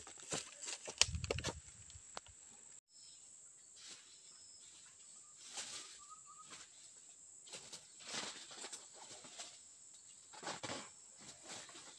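Footsteps crunching and rustling through dry bamboo leaves and forest undergrowth, irregular, heaviest in the first two seconds, then sparser steps later on. Under them runs a steady high insect drone.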